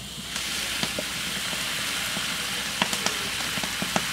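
Raw rice pouring in a steady stream from a metal tray into a large metal pot of water: a continuous hiss, with scattered ticks of grains striking the pot.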